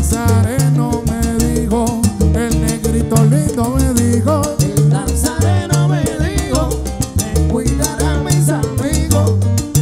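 Live salsa band playing an instrumental passage, with a bass line, Latin percussion and horn lines.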